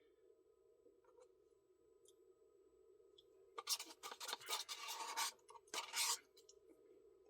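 A faint steady hum, then about halfway in a run of scratchy scraping and rubbing lasting roughly two and a half seconds.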